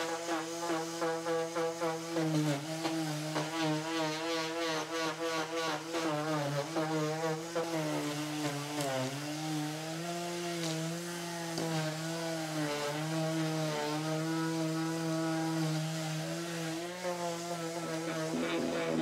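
Electric detail sander running against a hardwood floor in a corner, a steady motor hum whose pitch wavers as it is pressed and moved, dipping briefly about nine seconds in.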